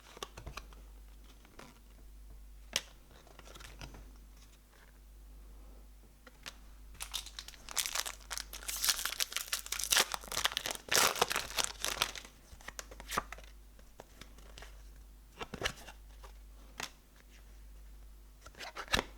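A trading card pack wrapper being torn open and crinkled: a dense crackling rustle for about five seconds in the middle, with scattered light clicks and taps before and after.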